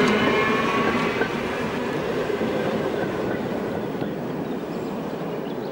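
Old electric railcar passing and moving away along the track, its humming tones dropping slightly in pitch as it passes. The wheel and rail rumble then fades steadily.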